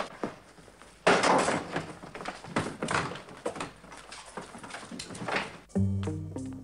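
A run of loud thuds and bangs with scraping and shuffling between them, starting about a second in, like doors or bodies being knocked about; music with a strong bass line comes in near the end.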